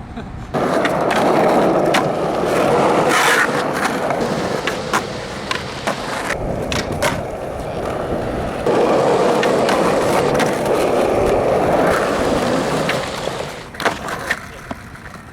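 Skateboard rolling on pavement: a steady wheel rumble starting about half a second in, with sharp clicks as the wheels pass over cracks. It eases off in the middle, picks up again, and fades near the end.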